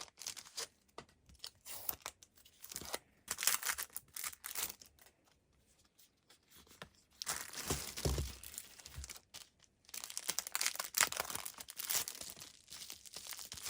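Parcel packaging being opened by hand: tape and plastic wrapping tearing and crinkling in irregular bursts, with a pause of about two seconds midway and a dull bump about eight seconds in.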